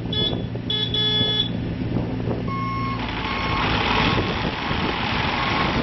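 Bobcat E35 mini excavator's diesel engine running with hydraulic and track noise. About two and a half seconds in, its travel alarm starts beeping in a repeated single tone as the machine moves on its rubber tracks. A brief high whine comes in the first second or so.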